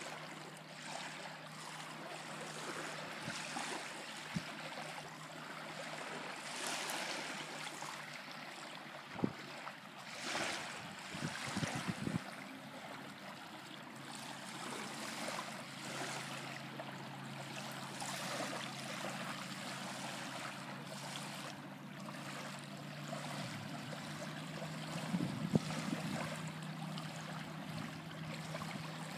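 Small waves lapping and washing onto a sandy lakeshore, swelling and easing, with a few brief knocks. A faint steady low hum runs underneath and grows louder after about twenty-three seconds.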